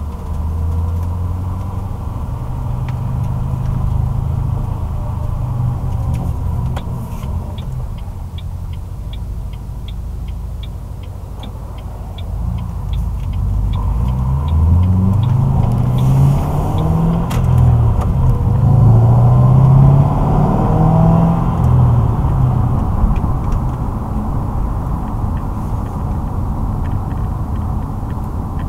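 2006 Ford Mustang GT's 4.6-litre V8 exhaust, running through a Pypes off-road X-pipe and Magnaflow axle-back mufflers, heard inside the cabin while driving: a steady low drone, then rising in pitch twice and getting louder as the car accelerates about halfway through. A light ticking about twice a second runs for a few seconds about a third of the way in.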